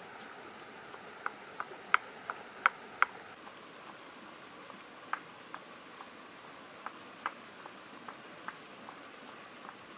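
A pestle knocking sharply in a small stone mortar as ingredients are pounded: a quick run of about six hard knocks, then lighter, irregular knocks about two a second, over the steady rush of a stream.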